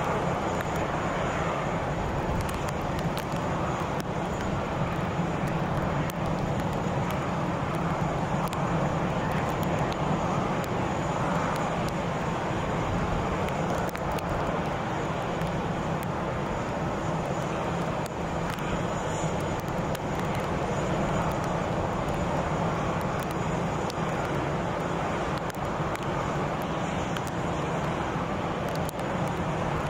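Jet airliner engines running at low power on the apron, heard as a steady drone with a hiss over it and no rise or fall.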